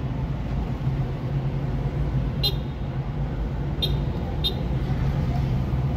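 Steady engine and road noise heard from inside a moving car in city traffic, with three short high-pitched toots about halfway through.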